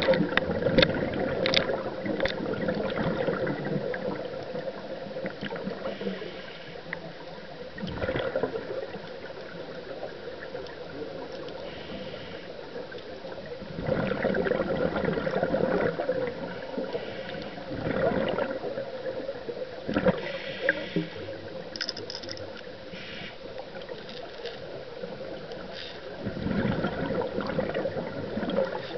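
Underwater recording: rushing water noise that swells and eases in several surges, over a steady hum, with scattered clicks and knocks.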